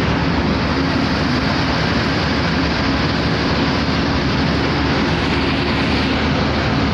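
Steady drone of a fishing trawler's engine, an even rumble with a constant low hum and no breaks.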